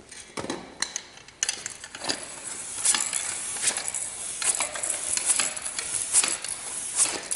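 Old floor pump being worked by hand to inflate a flat bicycle tyre: even strokes with a rush of air and a light clatter, about five every four seconds, starting a little over a second in.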